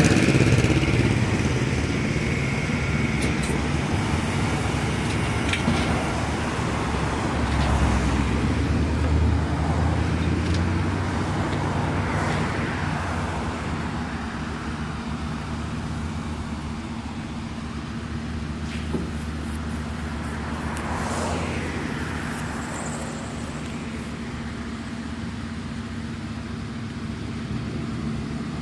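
Steady engine hum and road noise of a moving vehicle, with a couple of louder swells that rise and fall like traffic going past, about halfway and about three-quarters through.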